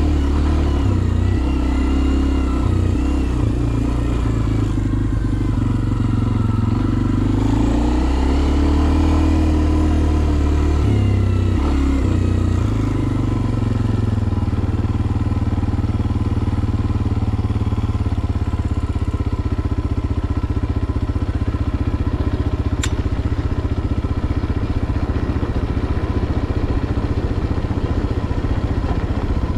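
Kawasaki KLX230R dirt bike's single-cylinder four-stroke engine under way, its pitch rising and falling with the throttle for the first dozen seconds, then settling into a steadier, lower running note. A single sharp tick about three quarters of the way through.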